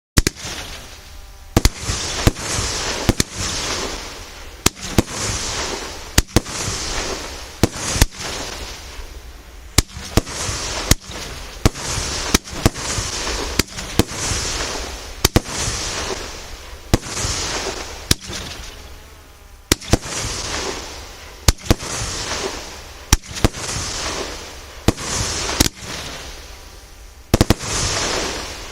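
Megapir Vegas MB90 fireworks battery (cake) firing shot after shot: a sharp bang every second or two, each followed by a hissing crackle that fades out.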